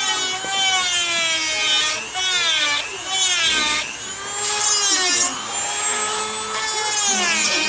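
Small corded high-speed rotary tool grinding down an alpaca's lower front teeth. Its whine repeatedly dips in pitch as the burr bears on the tooth, then climbs back.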